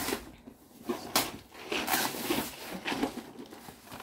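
Gift-wrapping paper rustling, crinkling and tearing in irregular bursts as a wrapped cardboard box is unwrapped by hand.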